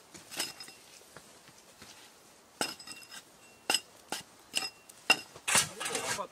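About six sharp metallic clinks, each with a brief ringing tone, spaced irregularly, as hard metal objects knock together. Near the end comes a rougher scraping rub.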